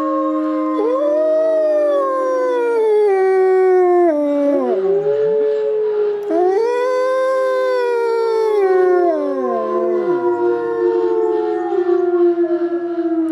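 Gray wolves howling in chorus with low-throated, overlapping howls. One wolf holds a steady low note throughout while others rise and fall in long glides, a couple of them sliding far down near the middle and near the end. These are pack members answering one another's howls.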